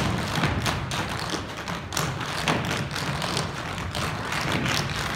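A group of dancers' feet tapping and stomping together on a wooden stage floor, a quick run of sharp clicks and thuds in rhythm.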